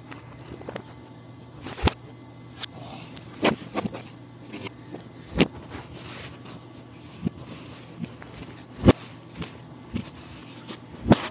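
A hand rolling and pressing Play-Doh on a tabletop: irregular knocks and taps on the table, a few of them sharp, with brushing and rubbing between, over a low steady hum.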